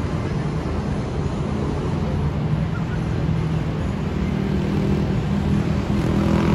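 Steady city road traffic: car engines running and passing along a busy street, a continuous low rumble.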